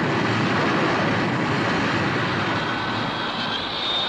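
Rocket-launch sound effect: a rocket engine firing at liftoff, a steady rushing noise with a faint high whine that grows near the end.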